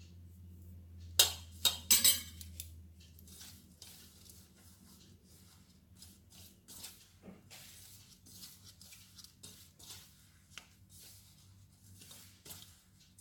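A few sharp kitchenware clinks about one to two seconds in, then a hand rubbing hot oil into dry flour in a metal mixing bowl, a faint irregular scraping and rustling of fingers and flour against the bowl.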